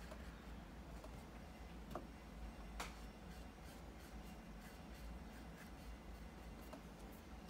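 Faint brushing and scratching of a paintbrush laying black paint on paper, with two light clicks about two and three seconds in, over a steady low hum.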